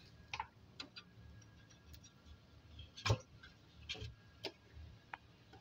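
Scattered light clicks and taps from handling the welding machine's small plastic cooling fan and its sheet-metal casing, the sharpest click about three seconds in, over a faint steady low hum.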